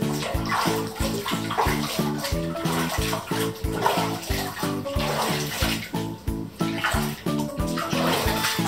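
Background music with a steady beat, over bathwater sloshing and splashing in a tub as hands wash a dog.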